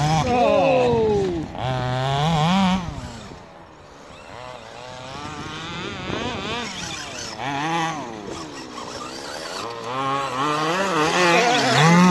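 Two-stroke petrol engine of a 1/5-scale RC buggy revving up and down as it is driven, the pitch rising and falling about once a second. It fades as the cars run off into the distance and grows louder again near the end as they come close.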